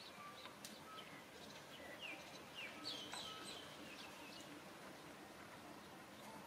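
Faint bird chirps: a run of short, high, falling chirps in the middle, over quiet outdoor background.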